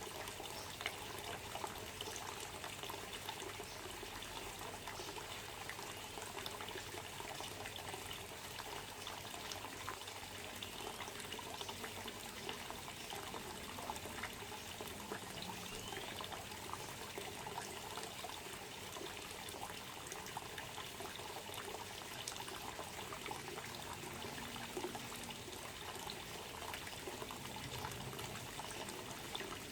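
Water trickling and pouring steadily, with scattered faint clicks.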